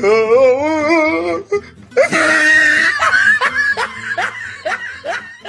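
A comedy voice sound effect: a wobbling, warbling voice for about a second and a half, then a loud, shrill cartoon-style laugh of repeated falling "ha" strokes that fades near the end.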